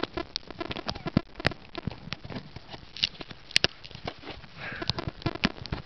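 Close handling noise on the camera's microphone as a hand works the taped-on camera loose: irregular clicks, knocks and rubbing, with a short burst of rustling about five seconds in.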